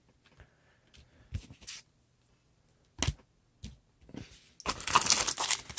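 A few light clicks and taps of trading cards being handled, then from about four and a half seconds in a dense crinkling and tearing as a trading-card pack wrapper is ripped open.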